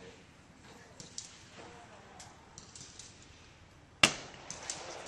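A single sharp gunshot with a short echoing tail about four seconds in, followed by a couple of light clicks; before it, only faint low background with a few soft clicks.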